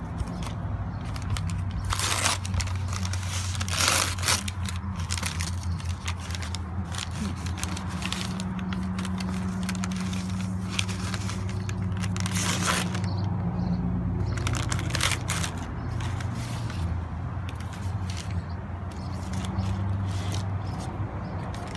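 Paper wrapping crinkling, rustling and tearing in irregular bursts as a sandwich is unwrapped from a paper bag and checkered wax paper, with a few louder rips. A steady low hum runs underneath.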